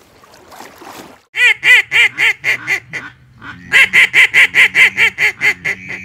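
Mallard duck call blown in two runs of quacks: about seven loud, falling quacks, then a quicker, even string of about eleven. It is aimed at mallards flying past.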